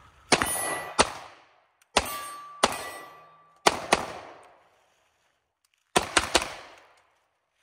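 Tisas 1911 Carry DS 9mm pistol firing about eight shots in an uneven string. Each shot has an echoing tail, and the last three come in quick succession near the end.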